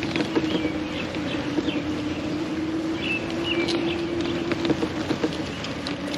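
A motor's steady whine, with rattling knocks over it and birds chirping, most clearly about three seconds in.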